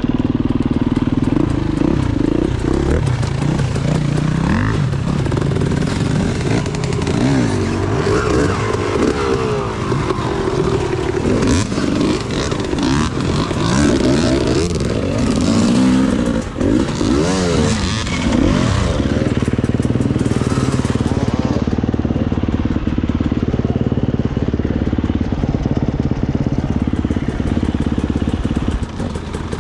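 Off-road dirt bike engines running. Through the middle, several engines are revved, their pitches rising and falling over one another; they settle back to steadier low running near the end.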